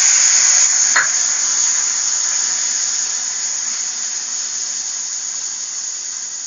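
Loud sizzling hiss of water hitting hot ghee-roasted semolina in a kadhai, starting with a burst of steam and slowly dying down. A single sharp click sounds about a second in.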